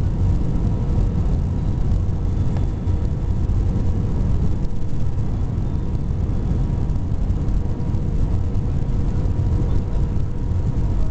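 Steady low rumble of engine and airflow noise heard inside an Airbus A320's cabin on final approach, with a faint steady hum tone riding on it.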